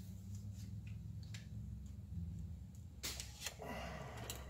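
Aluminium-foil-covered flan tin being set into a plastic steamer basket: a brief crinkle of foil and light clicks about three seconds in, over a low steady hum.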